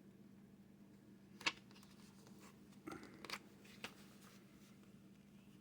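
A few short, faint crinkles and clicks of clear plastic laminate sheet being handled, over a low steady hum.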